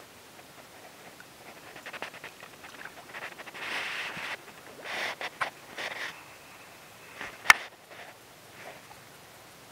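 Short bursts of water splashing as a hooked ladyfish thrashes at the surface, with a single sharp click near the end.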